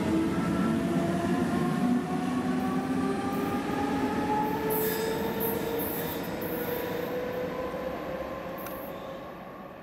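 Swiss electric double-deck train pulling out of a station: its traction drive whines in several parallel tones that rise steadily in pitch as it accelerates, while the sound fades as it draws away. Short high squeals from the wheels cut in about halfway through.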